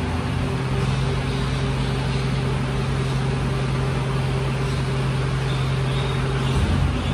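Mercedes-Benz refuse truck's engine running steadily, with a steady hum that drops away about six and a half seconds in.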